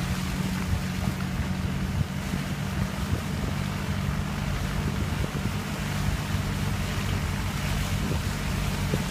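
Four-wheel-drive vehicle's engine running steadily at low speed, a constant low hum, with road noise from rolling over a rough, muddy dirt track and wind on the microphone.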